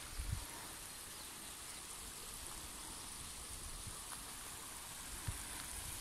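Faint steady hiss, with a soft low thump just after the start and another about five seconds in.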